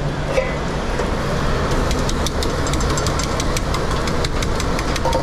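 Steady rumble of a commercial kitchen's extraction, with a run of small, quick clicks and crackles from about two seconds in.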